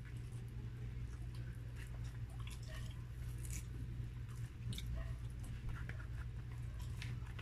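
Close-up chewing of grilled chicken, with small wet clicks and smacks from the mouth and fingers pulling the meat apart, over a steady low hum.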